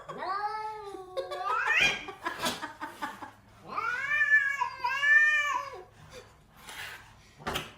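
A cat yowling in two long, drawn-out meows. The first rises in pitch at its end, and a second, wavering call comes about four seconds in. A few short knocks fall between them.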